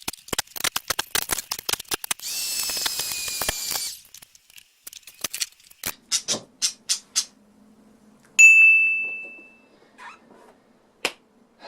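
Clutter being moved around on a table: a quick run of clicks and knocks, a scraping rush lasting about two seconds, then scattered knocks and one ringing clink about eight seconds in that fades away over about a second.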